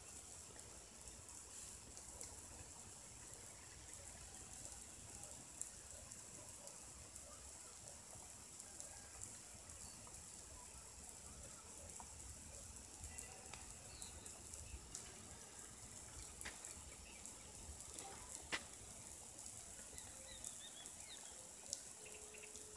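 Faint, steady hiss of water spraying from rotating micro-sprinkler heads, with a low rumble underneath and a few sharp clicks.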